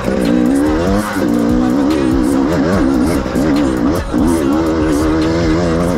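Enduro dirt bike engine revving hard and unevenly, its pitch rising and falling every fraction of a second as the throttle is worked over rough ground.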